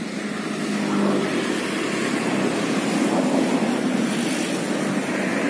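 Steady rush of road traffic passing, swelling slightly now and then.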